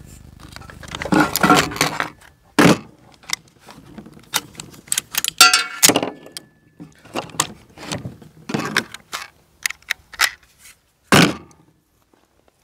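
Irregular metal clicks, clacks and scrapes of an AR-15 being worked by hand, with a short metallic jingle about five seconds in.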